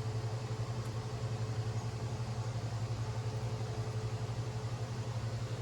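Steady low mechanical hum with a fast, even flutter, running unchanged throughout.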